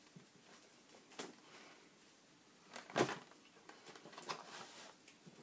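Close-up eating and handling sounds: chewing, with a few short crinkles and knocks from the paper, plastic and cardboard food packaging, the loudest about three seconds in.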